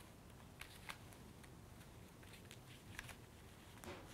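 Faint handling of tissue paper and a rubber band as the band is wound around the neck of a tissue-paper doll: a few small clicks, with a longer rustle near the end.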